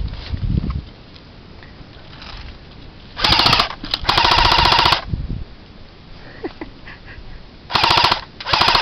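Airsoft gun firing BBs on full auto in four bursts of rapid, evenly spaced shots: a short burst about three seconds in, a longer one of about a second right after, then two short bursts near the end.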